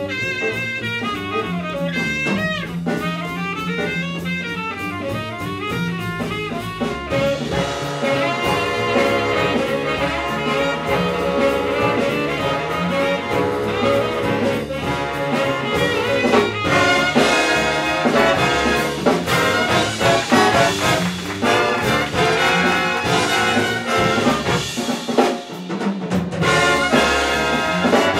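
Live big band jazz: a saxophone solos over the rhythm section, then the full brass and reed sections come in together about seven seconds in. The band drops out briefly near the end before playing on.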